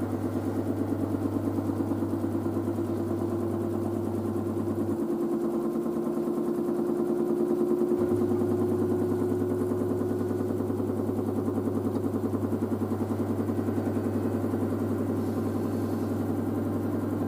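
LG DirectDrive washer-dryer spinning up, a steady whirr of drum and direct-drive motor with a fast even pulse, still rising in speed.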